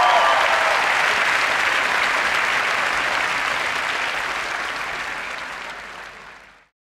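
Large audience applauding, dying away from about four seconds in and cutting off just before the end.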